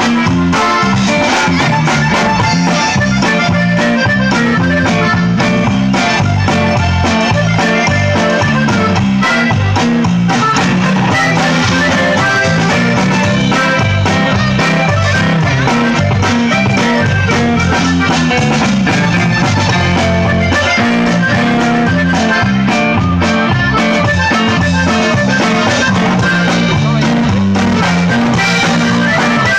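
A live band led by an accordion plays continuous, loud music through PA speakers.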